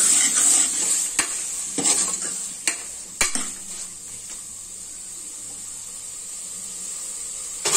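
A metal ladle stirs mutton pieces with onion and tomato in an aluminium pressure cooker while the oil sizzles, and the ladle knocks against the pot several times. The stirring stops a little past halfway and a quieter sizzle carries on, with a sharp knock near the end.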